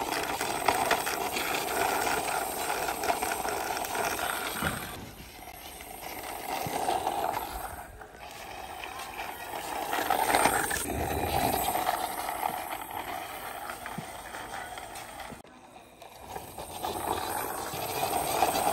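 Plastic toy tow truck rolled by hand along a rough concrete wall: a continuous gritty rattle from its wheels, which drops away briefly a few times.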